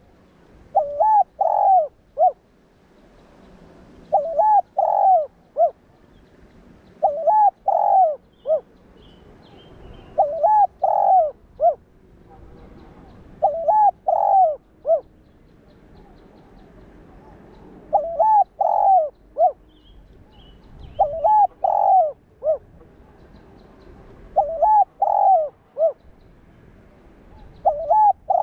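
Spotted dove cooing: a short phrase of a few coo notes, repeated about every three seconds, with one longer pause midway.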